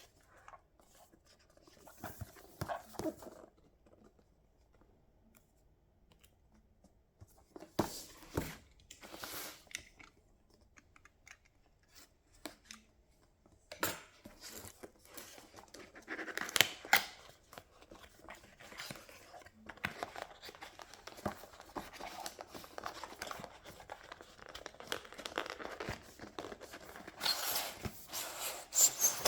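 Keyboard packaging being handled and opened: irregular bursts of rustling, scraping and tearing. They come in short spells at first and run almost continuously through the second half, loudest near the end.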